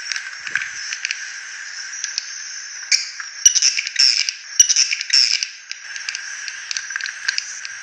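Recorded swiftlet lure call: a dense chatter of rapid, high-pitched swiftlet chirps and twitters. The chatter grows busier and louder in the middle, with two sharp clicks. It is the call-and-roost sound played to attract swiftlets, which the uploader calls rough and 'dirty'.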